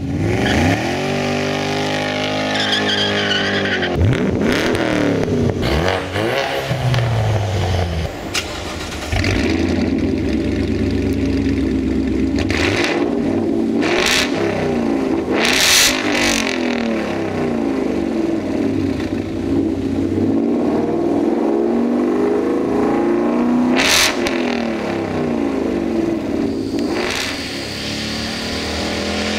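2015 Ford Mustang GT's 5.0-litre V8 through an MRT KR muffler-delete exhaust with an H-pipe and no mufflers. It revs up and down in the first few seconds, then holds longer, steadier stretches of running.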